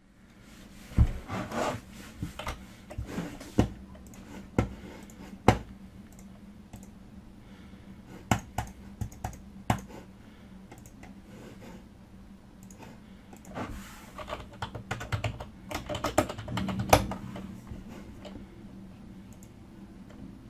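Typing on a computer keyboard, with mouse clicks: irregular flurries of key clicks about a second in and again in the last third, and single sharp clicks between.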